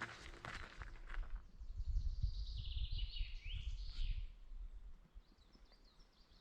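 Footsteps on the forest floor for about the first second, then a songbird singing in short gliding phrases over a low rumble for a few seconds. Near the end only faint bird calls remain.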